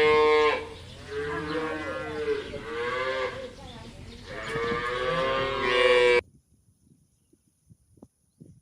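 Cow mooing in a run of long, drawn-out calls, about four in all. The last call breaks off abruptly about six seconds in, as if the recording were cut.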